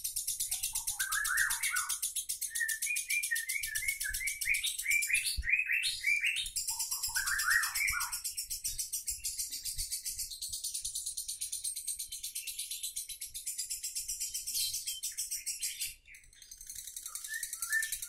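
Lovebird singing its 'ngekek': a long, very rapid, high-pitched chattering trill, with groups of rising chirps over it. The trill breaks off briefly near the end, then starts again.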